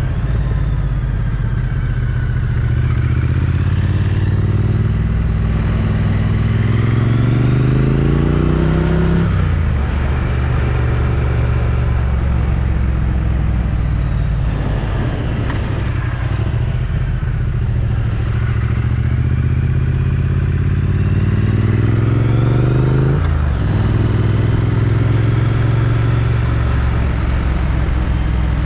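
Triumph Street Twin's 900 cc parallel-twin engine through its stock exhaust, pulling under acceleration. The pitch climbs for several seconds and drops sharply at an upshift, about nine seconds in and again about twenty-three seconds in, with steady cruising between.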